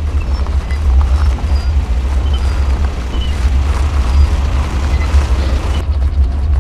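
Deep, heavy machinery rumble of tracked excavators on the move, a steady low drone with a rougher, louder stretch in the middle. The hissy upper part cuts off sharply about six seconds in.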